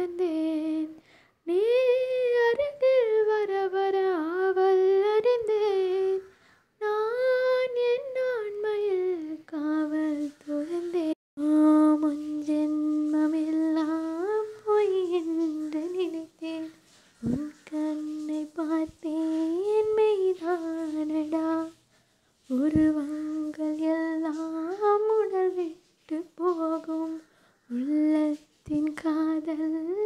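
A single high voice humming a slow melody without words or accompaniment, in phrases of long held and gliding notes broken by short pauses.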